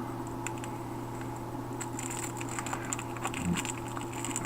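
Plastic and cardboard packaging from a card gift box being handled: a few light clicks, then a denser run of crinkling and ticking from about two seconds in. A steady low hum sits underneath.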